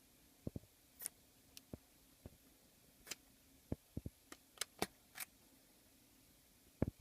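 Irregular small clicks and taps of a precision screwdriver and tools working on screws inside an iPhone 5, about fifteen in all: some sharp and high, some dull, the loudest near the end.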